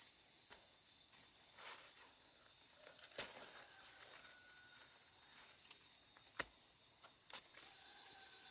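Near silence: faint background with a steady high hiss, broken by a few short, sharp clicks or knocks, three of them standing out.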